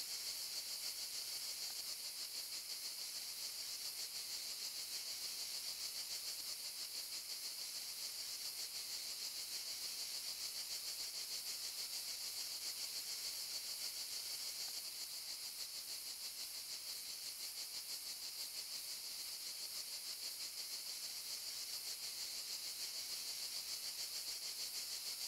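Cicadas chirring: a steady, high-pitched drone with a fast, even flutter and no break.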